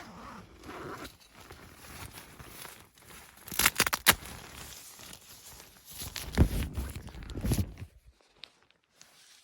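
Rustling and handling noises with a few sharp clicks about three and a half to four seconds in, then a heavier low rustle before it goes almost quiet near the end.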